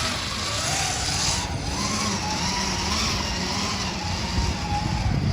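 Badland 5000 lb 12-volt electric winch motor running steadily with a whirring gear whine that wavers slightly in pitch, then cutting off near the end.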